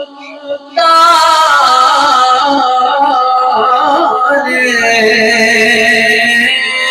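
A man's voice singing a naat, an Urdu devotional poem in praise of the Prophet Muhammad, in one long held line whose pitch wavers and rises, starting about a second in after a quiet opening.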